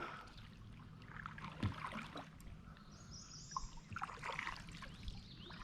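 Faint water sounds around a kayak: light trickling and dripping with a few soft knocks against the hull, and a brief high chirp about three seconds in.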